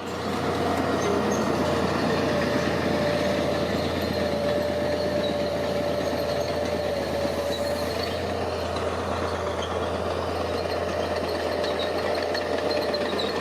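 Heavy diesel construction machinery running steadily under load, with a steady low hum and a thin whining tone over it through the first half or so.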